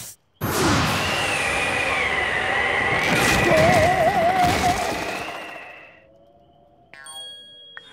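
Cartoon soundtrack sound effects: a loud noisy rush that starts abruptly and lasts about five seconds, with a wavering whistle over it. Then a faint held tone and a short musical sting near the end.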